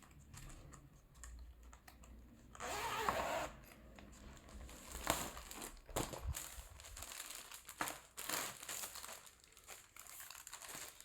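Plastic packaging crinkling and rustling as the car duster is handled, with one longer rustle a little under three seconds in and scattered clicks and crackles throughout.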